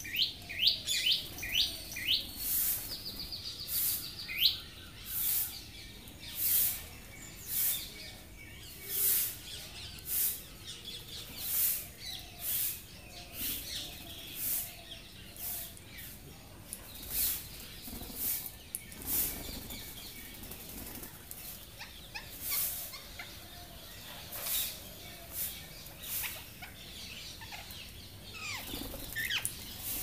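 Birds at a seed feeder: short, harsh hissing bursts about once a second, with a few rising chirps in the first seconds. Rose-ringed parakeets squawk in the last second or two as more of them arrive.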